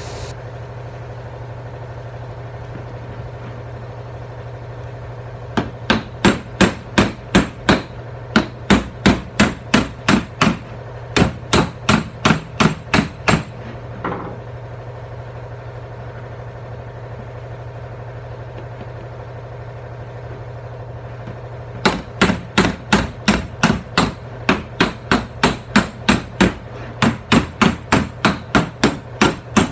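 Body hammer tapping out dings in a car's steel quarter panel, in quick runs of about four blows a second: several short runs in the first half and a steady run in the last third. A steady low hum runs underneath.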